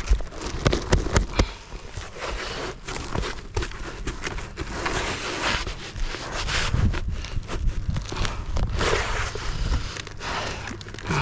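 Asphalt roof shingles being pried and worked loose, with irregular scraping, crackling and knocks as the tar sealant strip lets go, and scuffs of movement on the roof.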